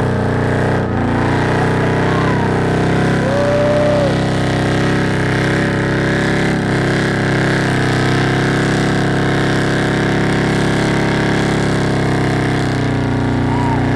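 Off-road wrecker rig's engine held at steady high revs under heavy load as it strains on a dead pull, wheels spinning in deep sand. The note stays steady and unbroken throughout.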